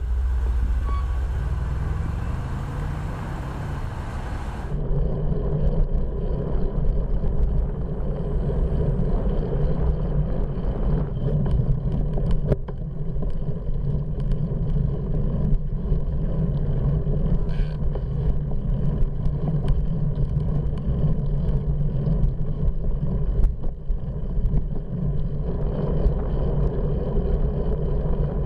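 Steady rumble of wind and road noise on the microphone of a handlebar-mounted bike camera while riding. In the first few seconds a car engine rises in pitch as it pulls away beside the bike.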